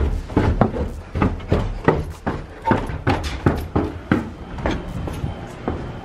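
Footsteps going down basement stairs, a quick run of heavy thumps about three a second that thin out near the end.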